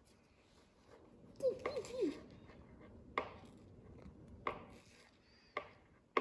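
Light tabletop handling during crayon-and-paper leaf tracing: a brief wavering hum from the child about one and a half seconds in, then four sharp light taps spaced about a second apart.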